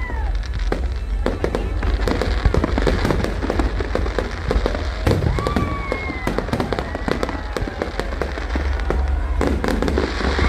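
Fireworks display going off continuously: dense crackling and sharp cracks over a deep rumbling of bursts, with a few short whistling tones.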